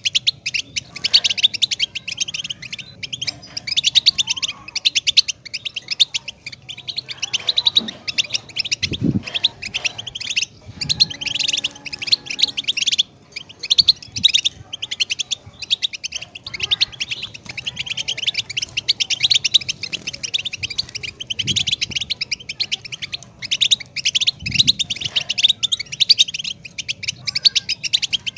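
European goldfinch singing a long, continuous song of rapid, high twittering notes, with a few low thumps underneath.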